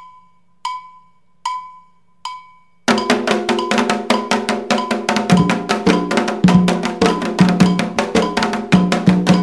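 A metal bell struck four times, each stroke ringing briefly, giving the beat; then, about three seconds in, drums and other percussion join in a fast, dense Candomblé rhythm.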